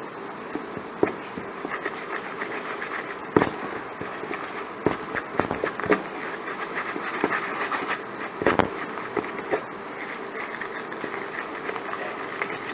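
Wooden stick stirring thick plaster paste in a plastic tub: irregular knocks and scrapes as the stick hits and drags along the tub's sides and bottom.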